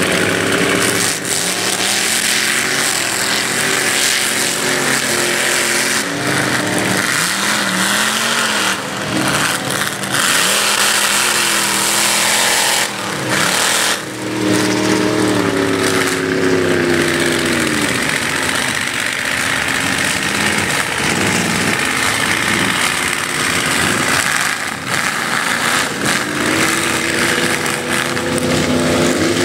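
Lifted four-wheel-drive mud-bog trucks' engines revving hard as they drive through a mud pit, the pitch climbing and falling again several times, with a steady hiss underneath.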